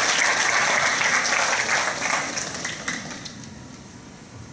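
Audience applauding, a dense patter of many hands clapping that dies away about three seconds in.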